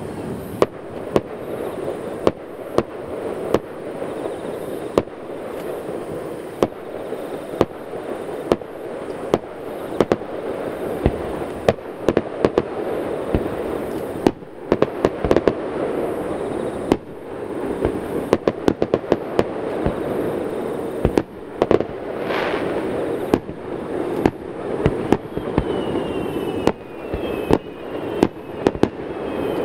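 Aerial firework shells bursting in a continuous series of sharp bangs, about one or two a second, over a steady low rumble between them. A whistle sounds about two-thirds of the way through, and a few short falling whistles follow near the end.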